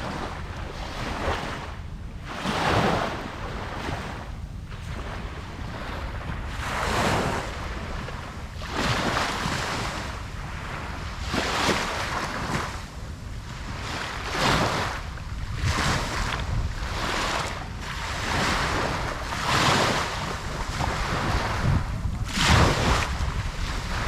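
Ocean waves breaking on a beach, a steady wash of surf that swells and falls every couple of seconds, with wind across the microphone.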